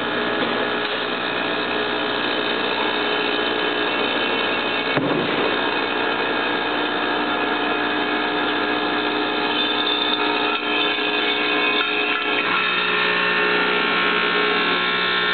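RF-101MA axial lead forming machine running with its vibratory bowl feeder: a continuous electric buzz made of many steady tones. A lower hum joins about twelve seconds in.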